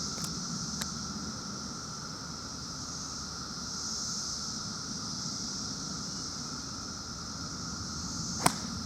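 A single sharp crack of a golf club striking the ball near the end, over a steady high hiss of outdoor background.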